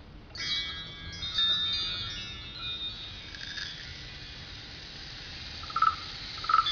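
Bell-like chimes ringing, many high overlapping tones that start about half a second in and linger. A couple of brighter strikes come near the end.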